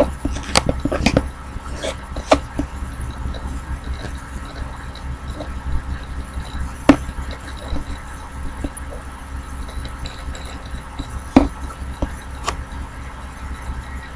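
A low steady hum with scattered sharp clicks and knocks: a quick cluster at the start, then single knocks every few seconds.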